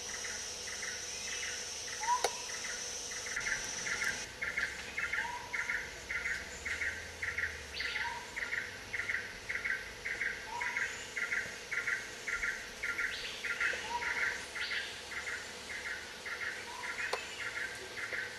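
Forest insects and a bird: a rhythmic pulsing insect chirp, about two to three pulses a second, over a high steady insect whine that cuts off about four seconds in. A short rising bird note repeats every two to three seconds.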